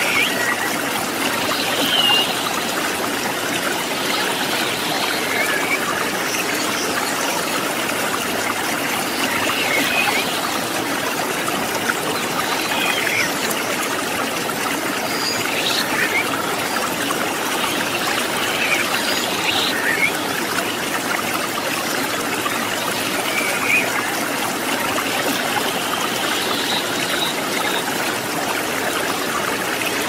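River water flowing over rocks: a steady rush with trickling and splashing, even in level throughout.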